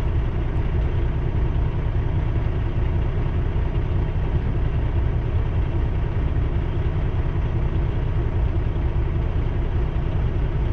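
Steady low rumble of a semi truck's diesel engine idling while stopped at a crossing, with a long freight train rolling past.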